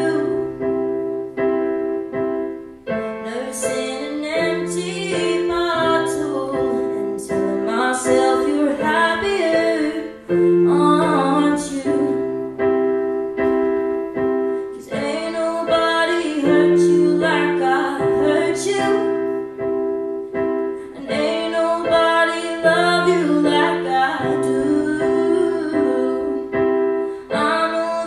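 A woman singing solo while accompanying herself on a stage keyboard with a piano sound, playing held chords that change every couple of seconds. The voice comes in about three seconds in, over the chords.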